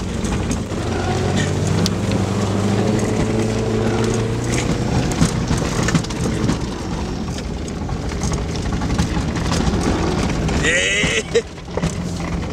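Car engine running, its pitch climbing over the first few seconds and then holding steady, with scattered knocks and clatter. A brief wavering squeal comes near the end.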